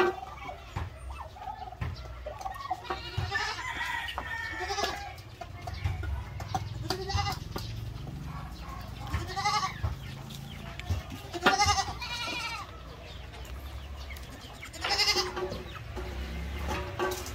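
Farmyard animals calling: goats bleating and chickens calling, about five separate calls spaced a few seconds apart, over a steady low rumble.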